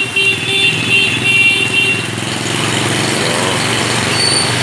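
Heavy rain hissing on a wet street, with motorbikes and cars passing through it. For the first two seconds, a high beeping tone pulses about four times a second over the rain.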